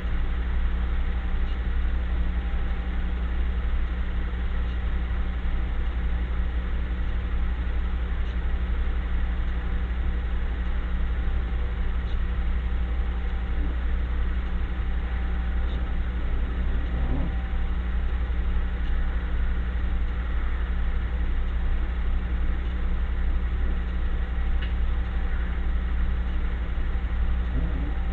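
A steady low droning hum with no rhythm to it, like a motor running.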